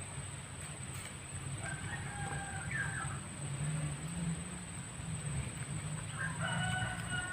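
A rooster crowing twice, a few seconds apart, each crow held level and then falling away, over a steady low rumble and a thin, steady high-pitched whine.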